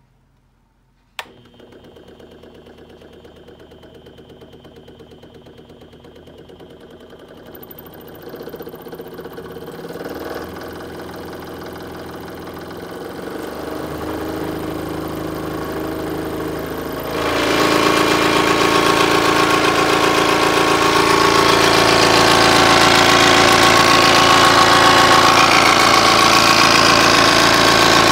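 DeWalt DW788 20-inch variable-speed scroll saw switched on with a click about a second in, then running with its blade arm reciprocating, growing louder in steps with a sharp jump in level around 17 seconds as the speed is turned up. The owner says the saw came back from two weeks at the DeWalt service shop still in the same faulty condition.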